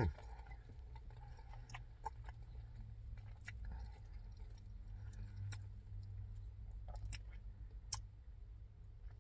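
A person chewing a mouthful of loaded nacho fries, with scattered light clicks from a plastic fork against a plastic bowl, over a low steady hum.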